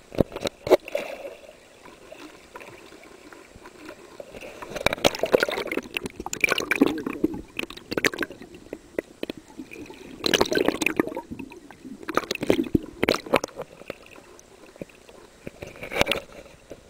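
Seawater sloshing and gurgling in irregular surges, with sharp clicks and splashes, as a released yellowfin grouper is held in the water.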